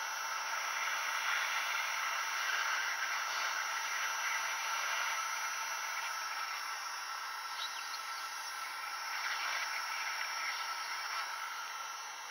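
Hot air gun blowing steadily, a rushing hiss with a faint whine, as it heats the graphics chip to reflow its BGA solder joints.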